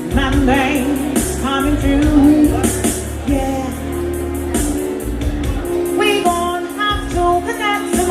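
Live band music with singing over a steady bass line and cymbals.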